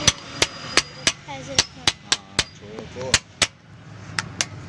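A hammer striking metal again and again: about a dozen sharp blows in uneven runs of two or three, some leaving a brief high ring.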